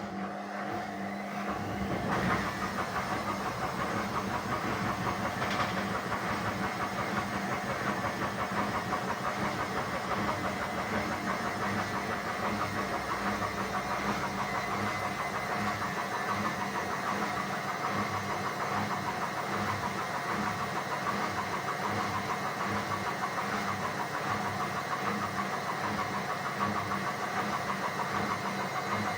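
Indesit WISN 101 front-loading washing machine's motor and drum running during the rinse cycle. It starts up about two seconds in and then runs steadily with an even hum and whine.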